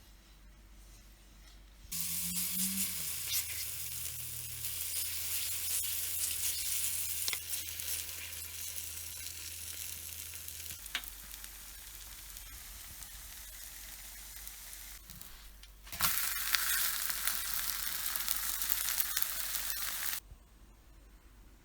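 Zucchini-and-cheese fritter batter frying in vegetable oil in a pan, a dense sizzle. It starts suddenly about two seconds in and eases somewhat mid-way. It comes back louder about sixteen seconds in and cuts off abruptly near the end.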